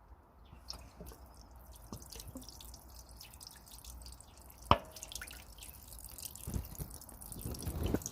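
Scattered water drips and small ticks, with one sharper tap about halfway through and a few soft thumps near the end; no engine running.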